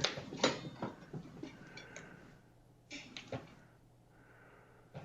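A cat knocking a household object about in a small room: a few faint clunks and knocks in the first second, and two more about three seconds in.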